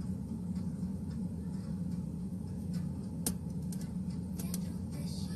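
Steady low background hum with a few scattered sharp clicks.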